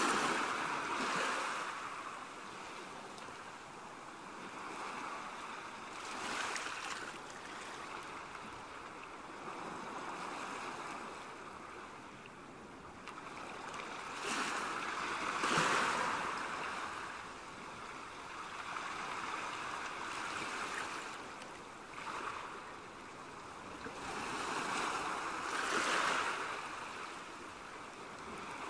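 Shallow seawater lapping and washing over a rocky shoreline, a steady rush that swells and fades every several seconds.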